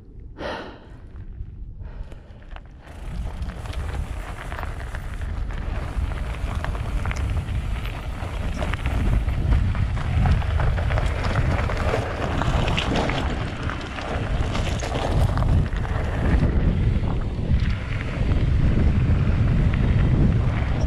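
Downhill mountain bike rolling down a dirt jump trail: wind buffeting the action-camera microphone over tyre noise and many small clicks and rattles, getting louder from about three seconds in.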